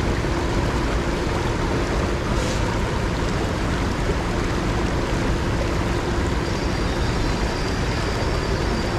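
Steady rush of creek water running over a riffle of rocks, with a faint, steady hum underneath.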